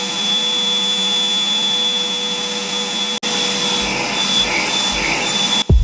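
Parkside PWDA 20 Li A2 cordless wet and dry vacuum running at full speed, a steady hum with a high whine, which cuts out for an instant about three seconds in. Near the end, electronic music with a beat comes in.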